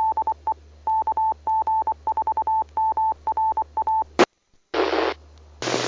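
A radio repeater's Morse code identifier: a single steady beep keyed on and off in short and long elements for about four seconds. Short bursts of radio static follow near the end as the channel is keyed and dropped.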